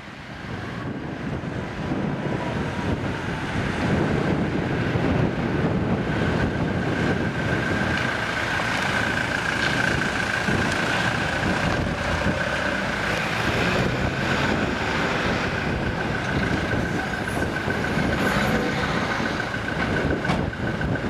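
A heavy vehicle running nearby, a continuous rumble with a steady high whine that sets in partway through and holds to the end.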